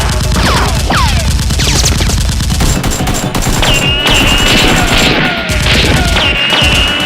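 Sustained rapid automatic gunfire sound effects, with falling whistling whines and a steady high whine that comes in about halfway through and again near the end.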